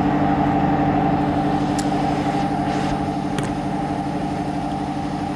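A steady machine hum from something running nearby, even in pitch, with a couple of faint clicks about two and three and a half seconds in.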